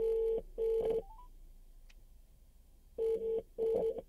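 British phone ringing tone of an outgoing call, playing through the car's stereo speakers via the Bluetooth FM transmitter: two double rings, each two short steady tones with a gap of about two seconds between the pairs, while the call waits to be answered.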